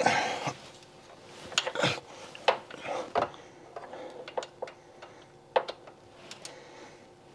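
Irregular clicks and sharp metallic knocks from a 3/8-inch flex-head ratchet working on the VVT solenoid bolt, with tool handling in between.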